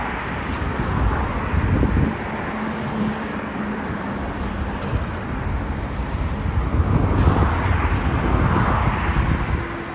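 Pair of Class 47 diesel locomotives with Sulzer V12 engines approaching along the line, a steady engine drone and rumble over outdoor noise.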